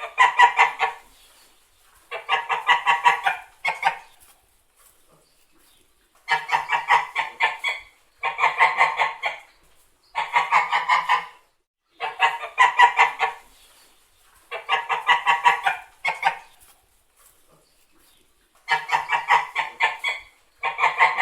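White domestic geese honking in repeated bouts. Each bout is a rapid string of harsh honks lasting about a second, and a new bout comes roughly every two seconds.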